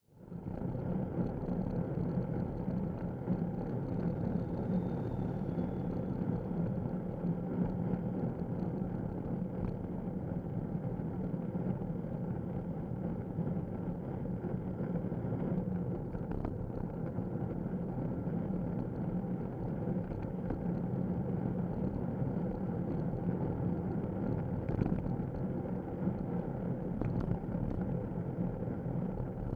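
Steady rumble of wind and road noise on the microphone of a Contour action camera fixed by a RAM arm mount low on a road bicycle that is riding along a street. A few faint clicks come through here and there.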